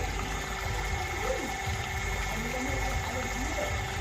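Water pump running with a steady hum and low rumble.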